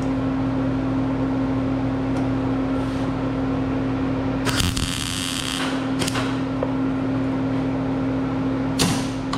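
Steady machine hum with a constant low tone. A harsh burst of noise lasts about a second and a half midway through, and short sharp sounds follow shortly after and near the end.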